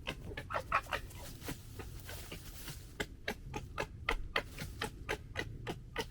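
Red fox cubs gekkering: a rapid stuttering chatter of short clicking calls, about three or four a second, the sound foxes make when squabbling.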